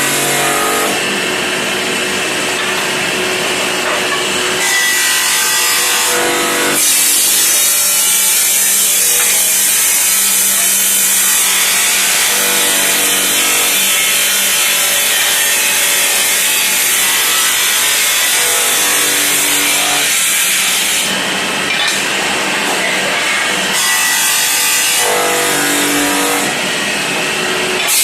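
Automatic tile-cutting machine running, its saw blade cutting ceramic tile with a loud, harsh hiss. Every several seconds the cutting noise eases and the motor's pitched hum comes through between passes.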